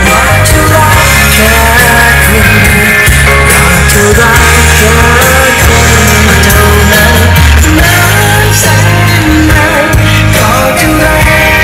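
A song with singing and a heavy bass line, played loud through a motorcycle's aftermarket speaker system.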